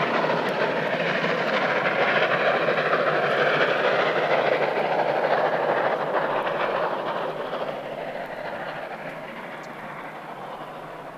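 Three-cylinder steam locomotive 58 311 working a train, a dense steady noise that fades away over the second half.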